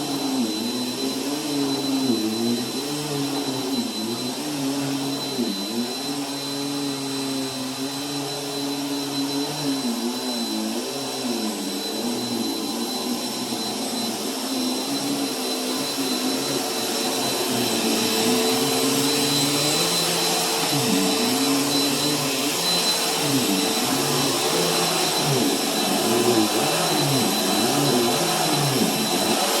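Bissell bagless vacuum cleaner running continuously on carpet. Its motor pitch wavers up and down as it is pushed back and forth, and it grows a little louder about halfway through.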